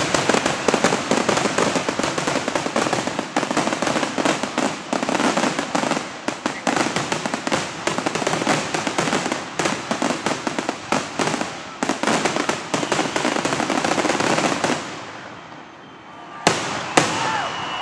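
Aerial fireworks in their grand finale: a dense, continuous volley of shell bursts and crackling for about fifteen seconds. It then dies away, and two last sharp bangs come near the end.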